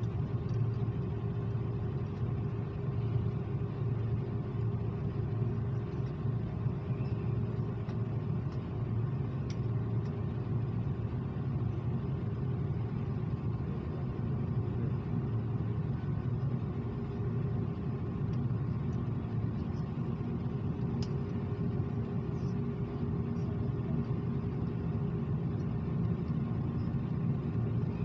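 Steady low rumble of Airbus A330 cabin noise, a constant drone with a faint steady hum over it and a few light ticks.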